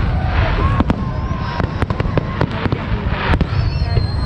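Fireworks display: many rapid sharp bangs and crackles over a continuous low rumble, with thin whistling tones gliding up and down, including a high whistle about three seconds in.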